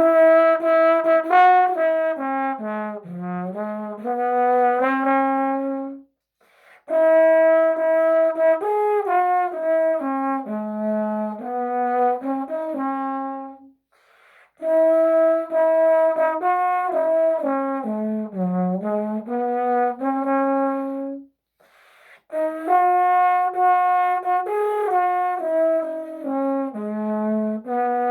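Trombone played through a 3D-printed mouthpiece: a melody in four phrases of several notes each, mostly stepping downward, with short breaks for breath between phrases. The same phrase shape comes back each time.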